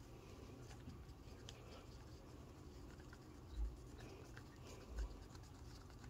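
Faint scratching and light tapping as a cup of tinted epoxy resin is handled and mixed, with two soft low thumps about three and a half and five seconds in.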